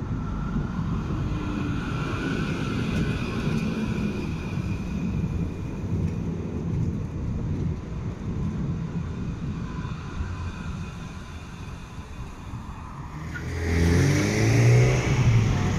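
Street tram and road traffic: a steady rumble with a faint high whine, then near the end a louder rising whine as a vehicle accelerates away.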